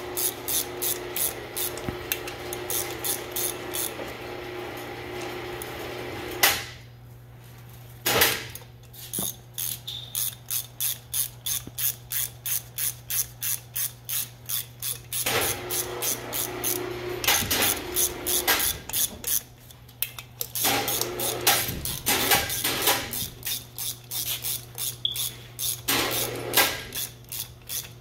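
Ratchet wrench with a 13 mm socket clicking in runs of regular strokes, about three a second, as it tightens the nuts on a pump's terminal board, with short pauses between nuts.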